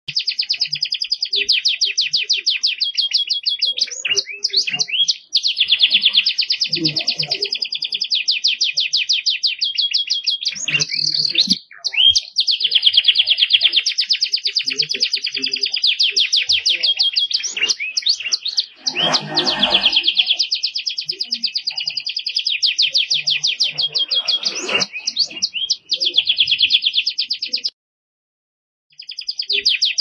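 Domestic canary singing non-stop: long, very rapid high trills and rolling phrases that change from one to the next, with short breaks about five and twelve seconds in and a pause of about a second near the end.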